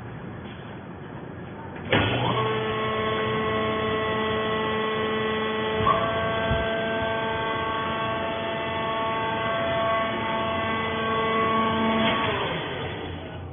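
Hydraulic baler's electric motor and pump starting with a quick rising whine about two seconds in, then running with a steady hum for about ten seconds before winding down near the end.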